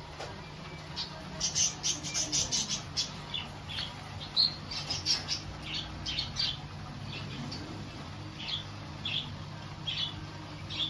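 Cage birds chirping and squawking in quick clusters of short high calls, over a steady low hum.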